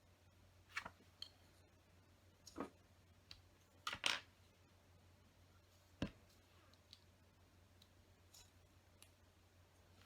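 Plastic LEGO bricks being handled, pulled off and pressed back into place, giving scattered sharp clicks and taps. The loudest click comes about four seconds in and another sharp one about six seconds in.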